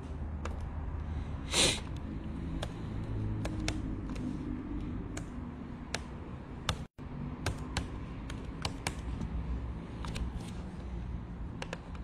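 Keyboard typing: scattered, irregular key clicks over a low steady room hum, with one short louder hiss about a second and a half in and a brief cut in the sound near the middle.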